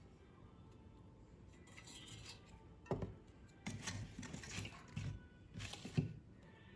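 Handling of small hardware parts: a run of irregular clicks, scrapes and knocks starting about three seconds in, the sharpest near the start and the end of the run.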